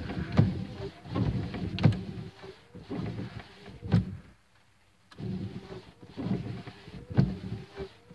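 Jeep windshield wiper motor running and the wiper arms sweeping, with a faint whine and a knock or thump at each stroke. The wipers stop briefly about halfway through, then start again.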